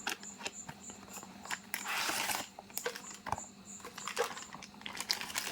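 A cardboard product box being opened and its contents handled: scattered clicks and taps, with a brief rustling, scraping rush about two seconds in.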